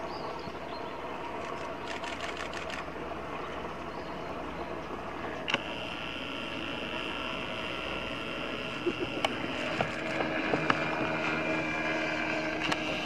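Camera shutters firing in continuous-shooting bursts: a rapid run of about ten clicks a second about two seconds in, then single clicks and short runs later, over a steady background hum.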